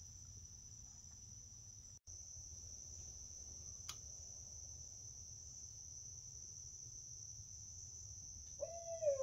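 Steady high-pitched chorus of night insects. Near the end an owl calls briefly, its pitch falling.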